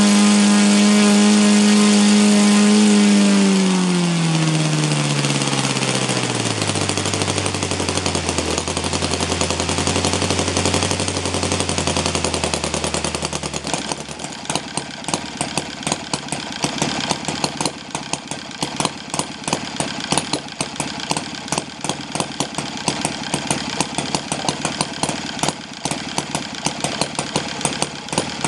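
O.S. FT300 Super Gemini four-stroke flat-twin model engine turning a propeller at high speed, about 6,000 rpm, then throttled back, its pitch falling over several seconds, to a slow idle around 1,000 rpm with separate, distinct firing beats.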